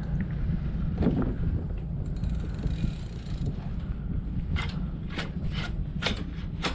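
Wind buffeting the action camera's microphone, a steady low rumble. A knock comes about a second in, and in the second half a run of short, sharp noises about two a second.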